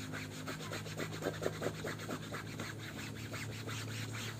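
Rubber-gloved hands scrubbing a soapy football jersey, rubbing the fabric against itself in quick strokes, several a second, to work off a cracked printed sponsor logo. A steady low hum runs underneath.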